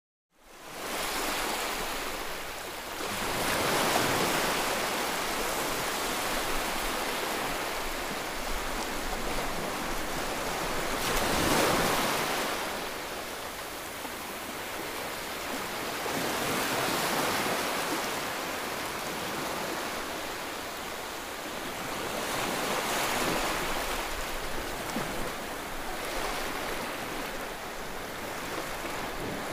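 Wind and water rushing aboard a moving yacht on open sea: a steady noisy rush, with wind on the microphone, that swells and eases every few seconds.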